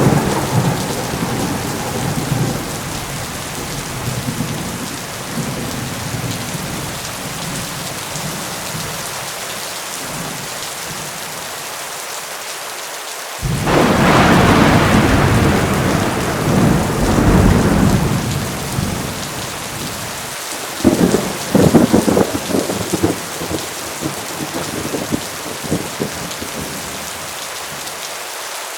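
Heavy thunderstorm: steady pouring rain throughout, with thunder. A rumble dies away at the start, a loud peal of thunder breaks suddenly about halfway through and rolls for several seconds, and a run of sharp cracks and rumbles follows near the end.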